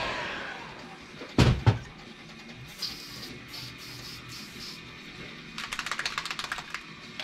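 Heat gun's blower winding down after being switched off, then two heavy thumps on the workbench about a second and a half in. Light scattered ticking follows, and near the end a quick run of rattling clicks.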